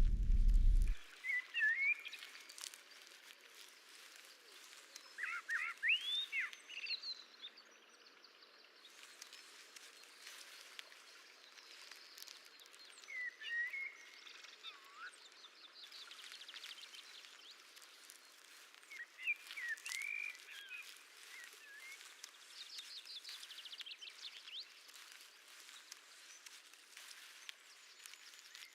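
Birds chirping in short, sweeping calls with a few rapid trills over a quiet outdoor ambience. A deep rumble cuts off about a second in.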